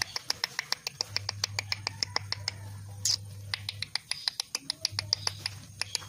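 Parrots chirping: a quick, steady string of short, sharp chirps, about six a second, with one longer, higher call about three seconds in.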